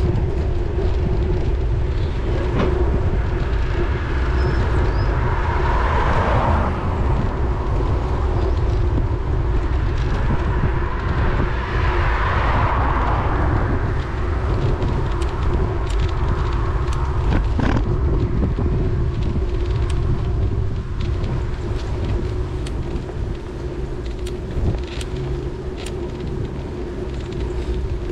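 Wind rumble on a riding bicycle's camera microphone, with tyre road noise, a steady hum and scattered sharp knocks and rattles over the road surface. Passing traffic swells twice, about 6 and 12 seconds in.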